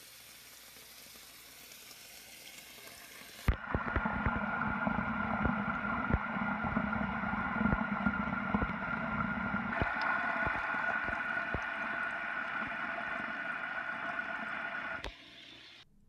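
Water recorded through an iPhone 7's microphone while it is submerged in a bathtub, muffled as heard underwater. A faint hiss at first, then suddenly, about three and a half seconds in, loud gurgling and churning of disturbed water with scattered knocks, which cuts off about a second before the end.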